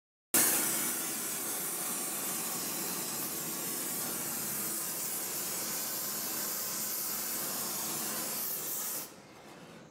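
Oxy-fuel torch flame hissing steadily as it heats the lathe's sheet-steel chip pan, cutting off about nine seconds in.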